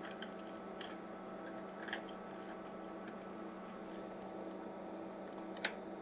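Light clicks and taps of coax test cables and their metal connectors being handled at the instrument's front panel, a few scattered strikes with the sharpest near the end, over a faint steady hum.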